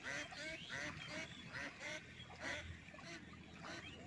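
Waterfowl calling: a quick series of short, repeated honking calls, about two or three a second, that thins out after about two seconds.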